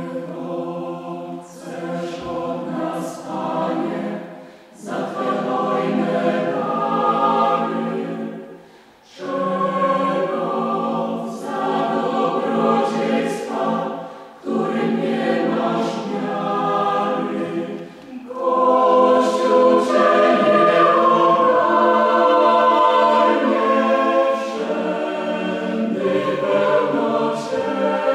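Mixed choir of women's and men's voices singing unaccompanied, in phrases of a few seconds parted by short breaths, with crisp consonants. The singing grows louder and fuller about two-thirds of the way through, then eases back.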